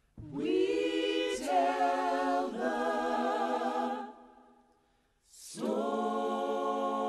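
A choir singing long held chords without words: the first comes in suddenly, wavers, and fades out about four seconds in. After a short silence a second chord swells in and is held.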